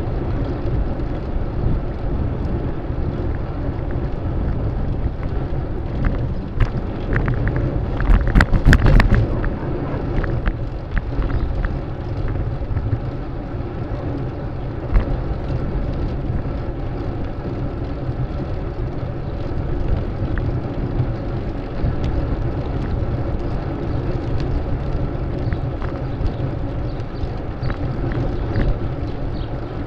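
Steady wind rumble on the microphone of a moving bicycle, with city street traffic running. There is a brief clattering rattle about eight seconds in.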